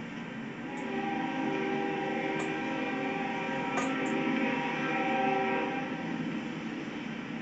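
Locomotive horn sounding a long held chord of several notes, swelling and easing over a few seconds, with a steady rumble underneath.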